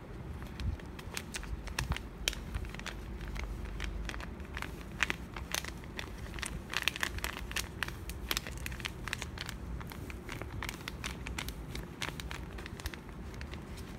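Handmade paper craft pieces and a paper bag crinkling and crackling as fingernails pick at them, giving many small sharp clicks and rustles.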